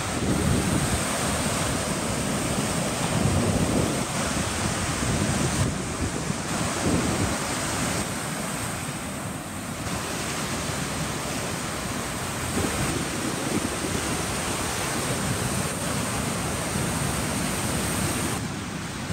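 Gulf of Mexico surf breaking and washing up the sand, a continuous wash that surges every few seconds as waves break, with wind buffeting the microphone.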